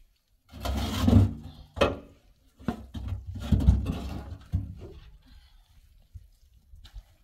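Rough scraping and rubbing with a few sharp knocks, in two stretches of about two seconds each, as things are handled and dragged by a metal basin.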